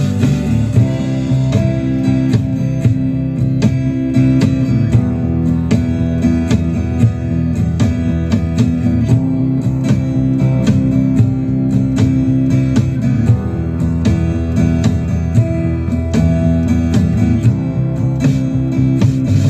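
Background music: acoustic guitar strumming over a steady rhythm.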